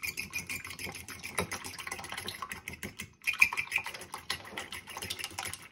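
A fork whisking two beaten eggs in a bowl, the tines striking the bowl in a fast run of light clicks, with a brief pause about three seconds in.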